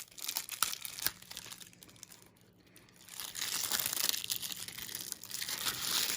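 Plastic shrink wrap being crinkled and torn off a DVD case by hand: scattered crackles at first, then a longer stretch of steady crinkling from about three seconds in.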